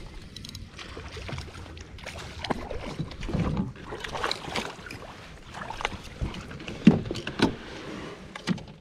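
Water splashing and sloshing around a fishing kayak, with scattered knocks and rattles of handling as a fish is reeled up alongside and netted. One sharp knock stands out about two-thirds of the way through.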